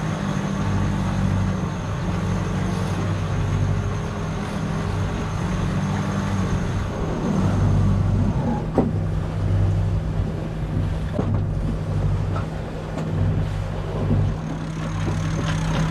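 Steady low mechanical hum of a motor aboard a sailing yacht, its pitch shifting slightly about halfway through.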